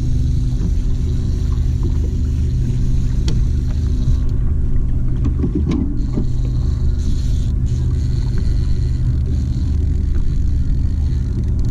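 A boat's outboard motor running steadily with a constant low drone.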